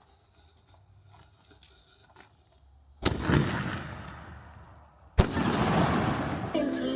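Two consumer firework bangs about two seconds apart, each followed by a spread of noise that fades away. Near the end, background music begins.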